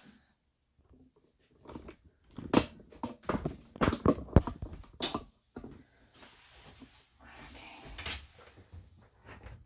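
Knocks and clattering as a small dog is moved into a bathing tub, several sharp knocks close together, followed by a softer steady hiss.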